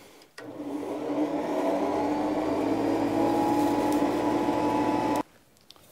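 Forge blower running, a steady whirring hum that comes up to speed over about a second and then cuts off abruptly near the end. It is blowing air into the coke fire to bring it up to heat.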